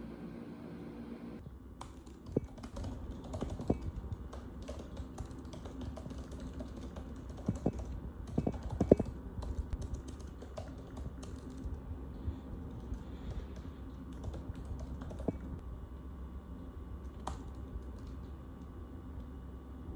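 Typing on a keyboard: a run of light, irregular clicks starting about a second and a half in, with a few louder taps around the middle.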